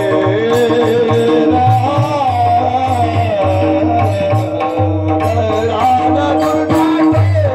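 Devotional bhajan singing played through loudspeakers: a voice winds through a melody over a steady drone, with low drum strokes and regular clashes of small hand cymbals keeping the beat.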